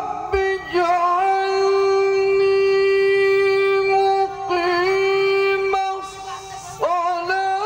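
Male reciter chanting the Qur'an in the melodic tilawah style into a microphone, holding one long steady note for about three seconds with ornamented bends at either end. After a brief lull near the end, the chanting resumes.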